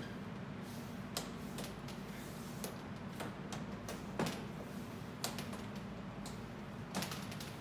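Scattered light clicks and knocks, the loudest about four seconds in, as a magnet-held side panel of a CNC mill's dust tray is handled and worked loose. A steady low hum runs underneath.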